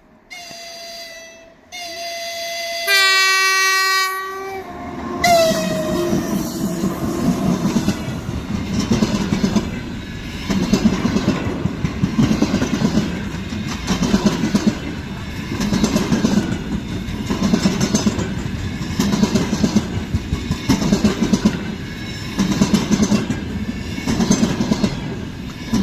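2ES6 electric freight locomotive sounding its horn three times, two short blasts and then a longer, louder one, with the pitch dropping as it passes. Then the train rolls by at speed, with wheels clattering over the rail joints in an even rhythm of about one beat every second and a bit.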